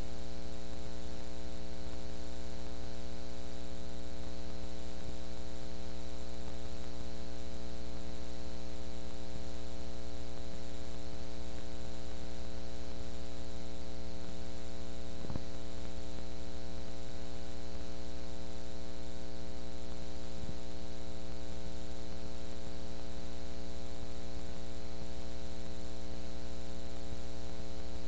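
Steady electrical mains hum with a stack of overtones over a constant hiss, the noise of a blank stretch of video recording showing only static. A faint brief click comes about fifteen seconds in.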